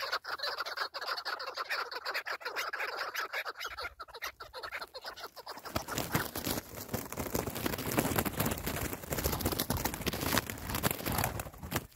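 Chukar partridges calling in fast runs of short repeated notes. About six seconds in, a louder rough rustling noise takes over.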